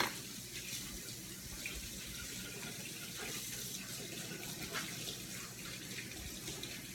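A sharp knock, then water running steadily from a tap into a sink.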